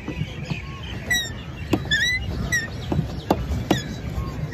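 Geese calling over the lake in a series of short honks, with a low steady churn of water and several sharp knocks.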